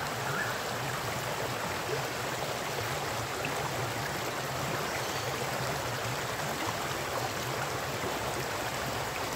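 Flowing water rushing steadily, a continuous even noise with no breaks or changes.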